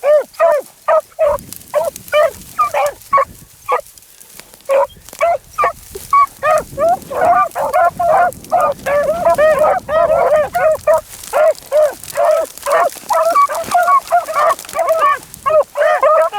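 A pack of beagles baying on a rabbit's scent. It begins as separate short yelps, then from about six seconds in several hounds cry together in a dense, overlapping chorus.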